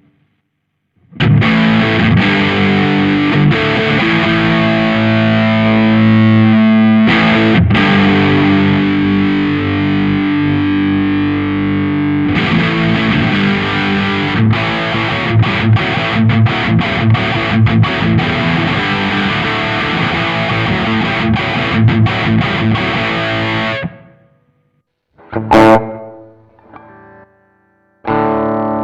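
Electric guitar (Fender Stratocaster) played through a Nux MG300 modeling processor on a distorted amp model. Held, ringing chords give way about halfway through to faster, choppier picked notes. The playing stops near the end, then a short phrase of notes follows.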